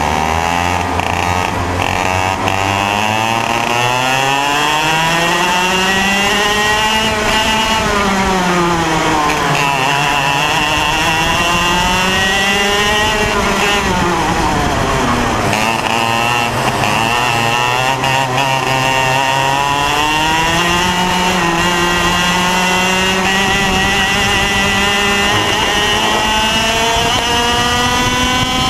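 IAME X30 Junior 125 cc single-cylinder two-stroke kart engine heard onboard at racing speed. It holds low revs for the first couple of seconds, then climbs. After that it repeatedly rises on the straights and drops off sharply into the corners.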